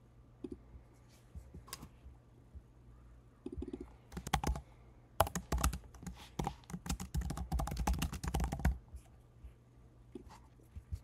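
Typing on a computer keyboard: a quick run of keystrokes in the middle, with a few single clicks before and after it.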